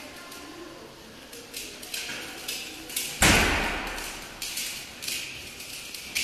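A large steel ball rolling across a gallery floor, with a string of sharp, echoing knocks about every half second and one heavy thud about three seconds in.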